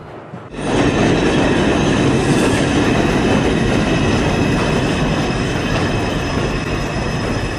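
New York City subway train running on the track, a steady rumble with wheel clatter and thin high squeal, starting abruptly about half a second in after a brief quieter gap.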